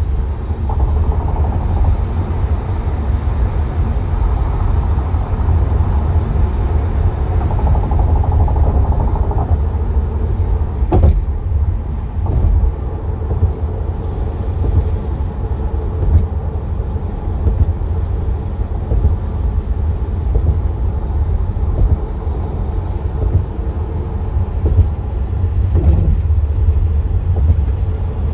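Steady low road rumble of a car at highway speed, heard from inside the cabin, with a few sharp knocks, the loudest about eleven seconds in and another near the end.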